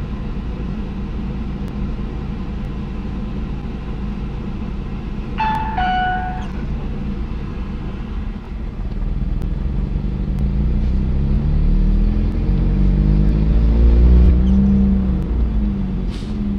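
Car engine heard from inside the cabin, running steadily, then pulling harder from about nine seconds in, its pitch climbing several times as the car speeds up through the gears. About five and a half seconds in, a short two-note electronic chime sounds.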